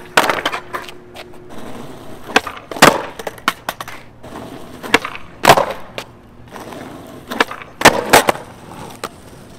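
Skateboard on flat asphalt during repeated nollie varial kickflip attempts. The deck snaps off the ground and slaps and clatters back down several times, in pairs of sharp cracks a few seconds apart, with the urethane wheels rolling on rough asphalt between them.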